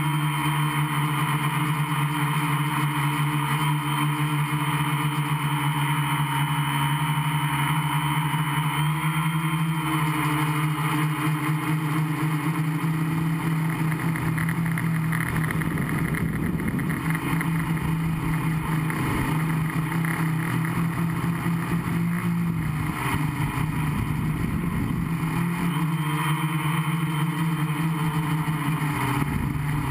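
Gaui 500X quadcopter's electric motors and propellers heard from the onboard camera, a steady hum. For several seconds in the middle the hum turns rough and uneven, then settles again.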